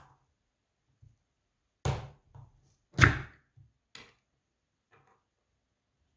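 Ring-pull lid of a can of condensed milk being pulled open: a few short sharp cracks as the seal breaks and the lid tears back, the loudest about three seconds in, with smaller clicks around them.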